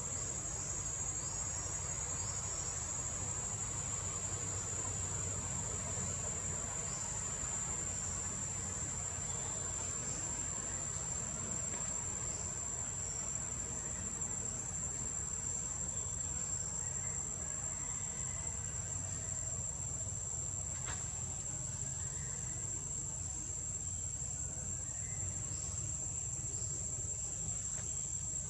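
Steady high-pitched drone of forest insects, with faint short falling chirps now and then and a low rumble underneath.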